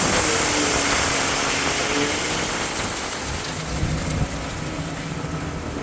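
A steady rushing noise with an engine running underneath, easing off gradually, as on a concrete pour.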